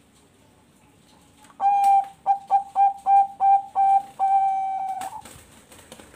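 Bangkok perkutut (zebra dove) cooing: one clear-pitched phrase starting about a second and a half in, made of a long opening note, a quick run of short repeated notes, and a long held final note. This is the trained cooing played as a bait call to set other perkutut singing.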